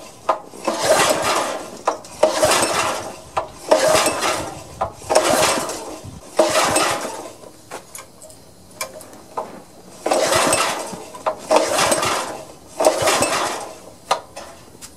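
Socket ratchet clicking in repeated strokes as the spark plug is unscrewed from a small four-stroke engine, about one burst of clicks every second and a half.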